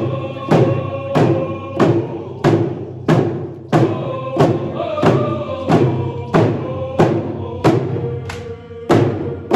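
A canoe family's group song: many voices singing together in unison over drums struck together in a steady beat, a little more than one and a half beats a second.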